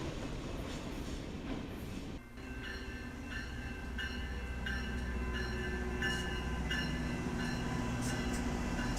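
A train running past with a steady rumble. About two seconds in the sound drops briefly, then a steady low hum carries on under a ringing that repeats about one and a half times a second.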